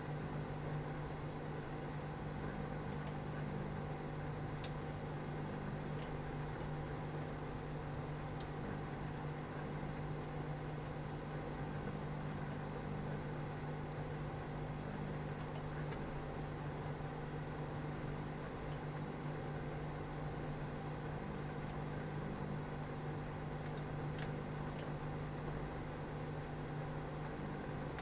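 Microwave oven running: a steady low electrical hum, with a few faint ticks over it.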